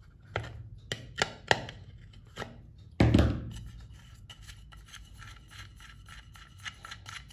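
Sharp metal clicks and knocks of lineman pliers working the safety-valve hex nut on an aluminium pressure cooker lid. The loudest knock comes about three seconds in, followed by faint light ticks as the nut is turned by hand.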